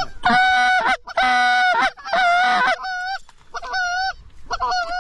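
Canada goose honking loudly: three long drawn-out honks in quick succession in the first three seconds, then three shorter, choppier honks.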